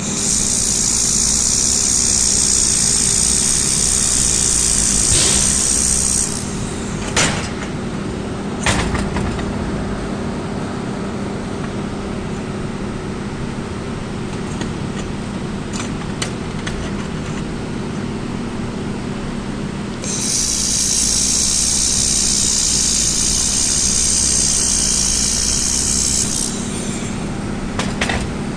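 Laser plate welding machine at work: a steady machine hum, with two loud high hissing passes of about six seconds each, one at the start and one about two-thirds of the way through, and a few sharp clicks in between.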